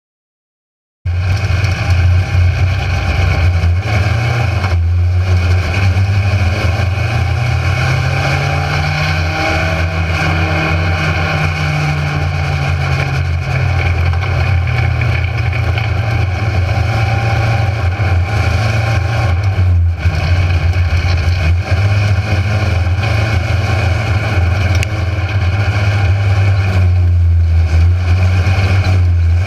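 Mini stock race car's engine heard from inside the car, running hard, its pitch rising slowly and falling back in the middle stretch. It cuts in abruptly about a second in.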